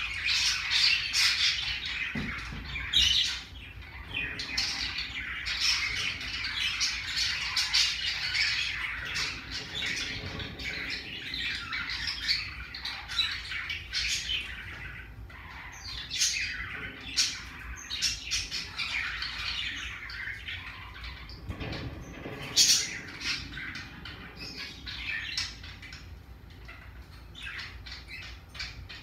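Pacific parrotlet chattering and squawking, a dense run of short high calls with scattered sharp clicks, louder in the first third and easing off later.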